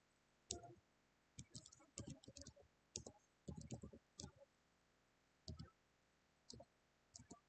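Computer keyboard keys being typed and backspaced: irregular runs of short clicks with brief pauses between bursts.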